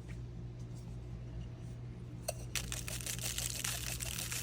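Rapid fine clicking of a hand pepper or salt grinder being twisted to season a steak: a few scattered clicks, then steady grinding again from about halfway through, over a low steady hum.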